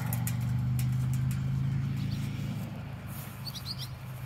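Engine of a motor vehicle running with a steady low hum that fades over the last couple of seconds. A bird chirps briefly a little before the end.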